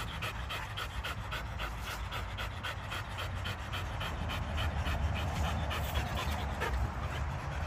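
Belgian Malinois panting hard and steadily with its tongue out, about four quick breaths a second.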